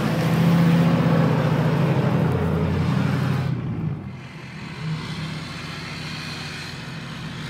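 Truck engine revving hard under load as a stuck pickup is pulled out of sand, then dropping back to a lower, steady running level about three and a half seconds in.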